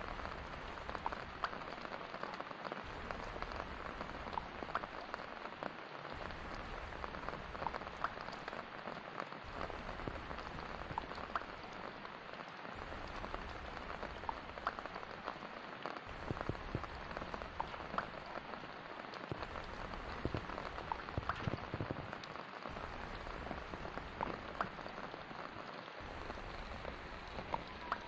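Heavy rain falling on a sheet of standing water: a steady hiss dotted with many small, distinct drop splashes.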